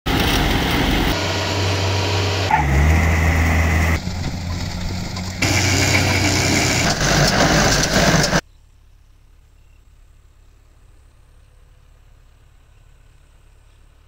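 Tractor engine and threshing machinery running loudly, heard in a string of short cuts with abrupt changes in tone. About eight seconds in, the machine sound cuts off suddenly, leaving a quiet outdoor background over the fields.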